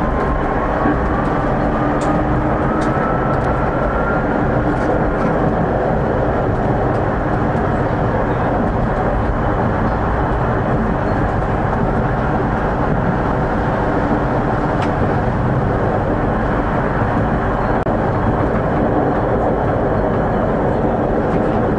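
Tram running on rails, heard from on board: a steady rumble of wheels on track, with the electric traction motors' whine rising in pitch for the first few seconds as it gathers speed, then fading into an even run.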